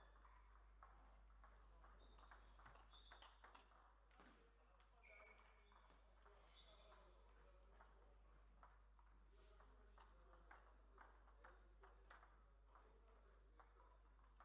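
Faint clicks of a table tennis ball striking bats and the table, coming irregularly and then at a steadier rally pace in the second half. There are a few short high squeaks in the first half.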